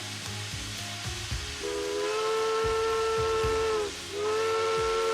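Steam locomotive whistle, most likely on Grand Trunk Western 4-8-4 No. 6325, over hissing steam. About two seconds in it blows a steady, chord-like blast lasting about two seconds, stops briefly, then sounds again near the end.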